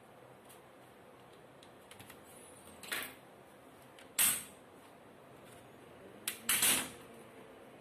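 Plastic clips of a laptop's bottom cover snapping free as it is pried off with a thin, rigid tool: a small click, a loud sharp snap about four seconds in, then another click and a short crackle of plastic near the end.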